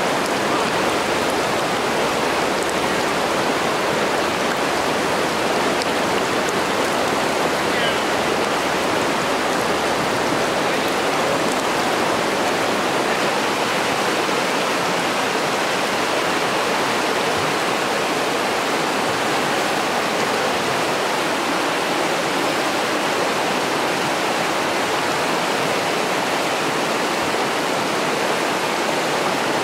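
Fast, high river water rushing over rocks through a shallow riffle: a steady, even rush.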